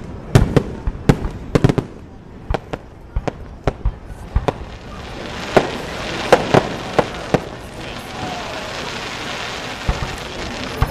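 Aerial firework shells bursting in a quick run of sharp bangs in the first two seconds, then more scattered bangs, over a steady hiss that builds from about halfway through.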